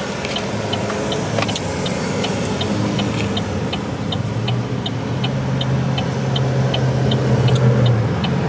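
Car cabin at a standstill: the engine hums steadily at idle while the turn-signal indicator ticks evenly, nearly three clicks a second.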